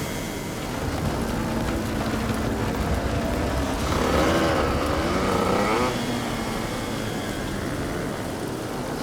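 Hard enduro motorcycle engines running together in a steady din. About four seconds in, one bike revs up and down louder for roughly two seconds.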